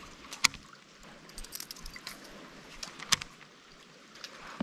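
Shallow creek water running faintly, with a few sharp clicks, the two loudest about half a second in and about three seconds in.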